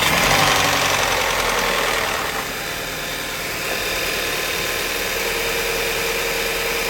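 VW/Audi EA888 turbocharged four-cylinder engine running just after a cold start on a freshly replaced timing chain. It starts at a higher, louder idle, then settles to a steady idle about two seconds in. The sound is one that the mechanic calls "very sexy", a sign that the new chain is running cleanly.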